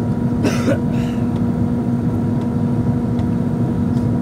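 Airliner cabin noise from a window seat during the approach descent: a steady rumble of engines and airflow with a constant low hum. A brief noise cuts across it about half a second in.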